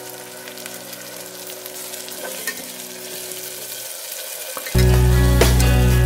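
Onions and oil sizzling in a metal pot as tomato paste is poured in and stirred with a metal slotted spatula, with small crackles and scrapes. Near the end, much louder background music cuts in suddenly.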